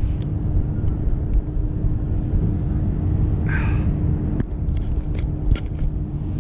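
Wind rumbling steadily on an action-camera microphone out on open water. A short hiss comes a little past the middle, and a few light clicks from handling the fishing rod and reel come in the second half.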